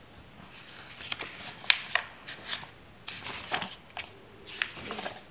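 Pages of a paperback textbook being flipped by hand: a quick run of crisp paper rustles and flaps starting about a second in.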